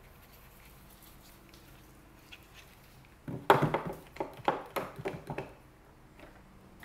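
One-handed bar clamp being tightened on a board at the workbench edge. After about three seconds of quiet comes a run of sharp clicks and knocks lasting about two seconds.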